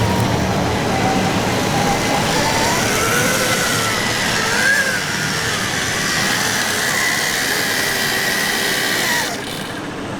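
Large-scale RC construction models running: a motor and hydraulic-pump whine that rises and falls in pitch over a steady noisy background. The sound changes abruptly about nine seconds in.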